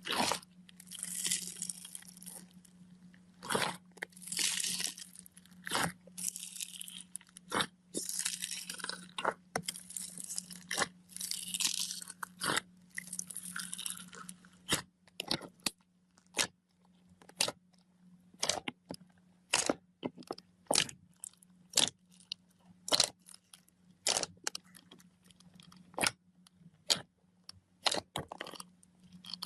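Slime being handled by hand: crackling, crunching squeezes through the first half, then a run of sharp separate pops or clicks, about one to two a second. A faint steady low hum runs underneath.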